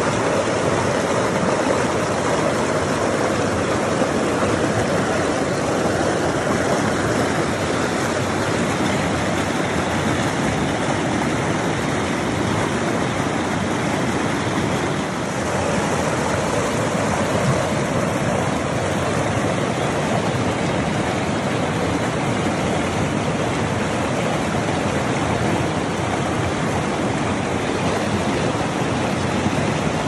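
Shallow mountain stream rushing over rocks in white-water rapids: a steady, full rushing and splashing of water close by.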